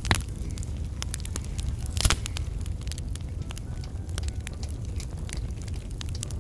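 Small brushwood fire crackling in a little stove: frequent sharp pops and snaps, with a louder pop at the start and another about two seconds in, over a steady low rumble.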